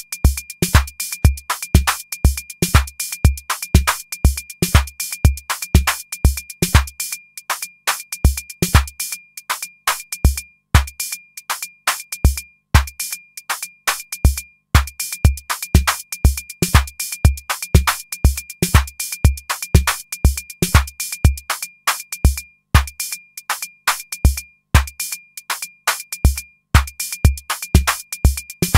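Electronic drum-machine pattern played by a MIDI step sequencer: a kick drum at about four beats a second under sharp hi-hat-like ticks and a thin high tone. For several seconds about a quarter of the way in, the kick drops to a few scattered hits as steps are muted, then returns.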